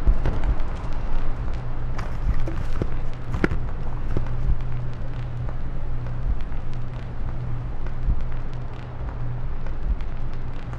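Record player stylus riding the lead-in groove of a vinyl record: a steady low hum with scattered crackles and pops before the music starts.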